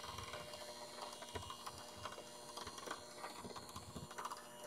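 Electric hand mixer running steadily at low speed, its beaters whipping heavy cream and pudding mix in a glass measuring cup, with scattered light clicks.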